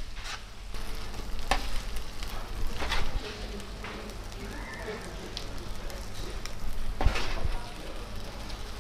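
Corn kernels and melting cheese sizzling on a hot flat-top griddle while metal spatulas scrape and toss them, with a few sharp scrapes and clacks of the spatulas on the griddle.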